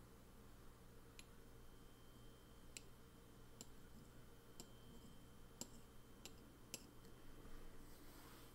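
Near silence with about seven faint, light clicks at uneven intervals, over a steady faint hum.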